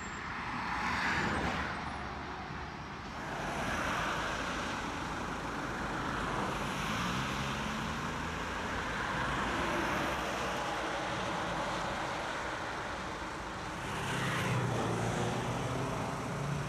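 Road traffic: a steady rush of car engines and tyres, swelling as vehicles pass about a second in and again near the end, with a low engine hum underneath.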